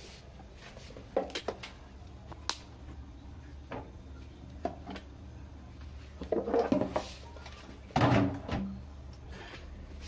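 Plastic flush-mechanism parts being handled inside a toilet cistern: scattered clicks and knocks of plastic, building to two louder clatters in the second half, the last the loudest.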